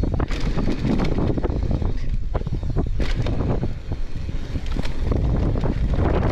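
Wind buffeting the microphone of a camera on a mountain bike descending a loose gravel trail, with tyres crunching over stones and frequent short knocks and rattles from the bike over bumps.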